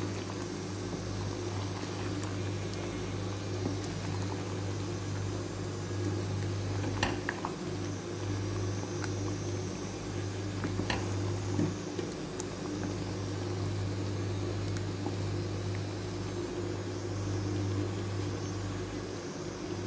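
Thick stew sauce bubbling as it simmers in a stainless steel pot, over a steady low hum. A few light knocks from a wooden spoon stirring the pot, around seven and eleven seconds in.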